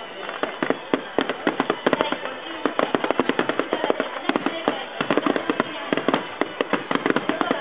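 Fireworks finale barrage: aerial shells bursting in a rapid, overlapping string of sharp bangs, several a second, without a break.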